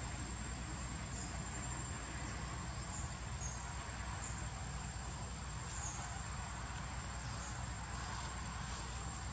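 Outdoor ambience: a steady high-pitched insect trill held throughout, with a few faint short chirps, over a low steady rumble.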